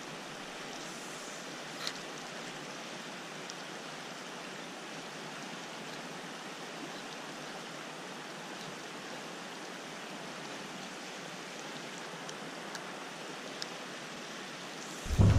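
Steady hiss of flowing river water, with a faint click about two seconds in. Near the end a much louder, low-pitched noise cuts in suddenly.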